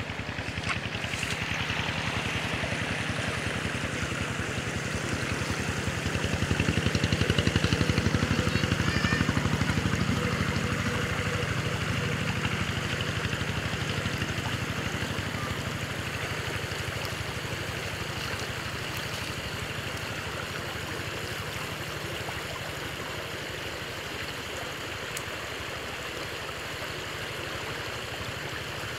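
Creek water running steadily through a narrow outlet past a bamboo cage fish trap, swelling louder for a few seconds about a quarter of the way in, then easing off.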